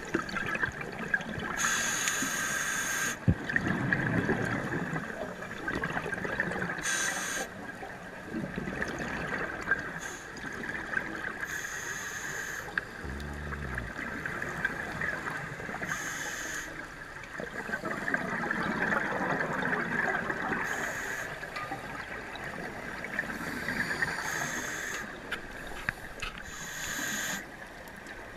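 A scuba diver breathing through a regulator, heard underwater: a short hiss on each inhale about every four to five seconds, with the bubbling of exhaled air between them, over a steady high hum.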